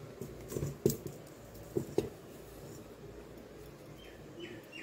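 A few light knocks of a stainless-steel bowl in the first two seconds as milled rice flour is tipped in from another vessel.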